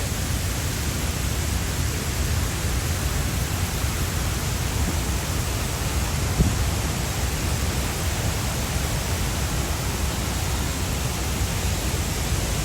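Waterfall in heavy flow: a steady, even rush of falling water, with one brief thump about six seconds in.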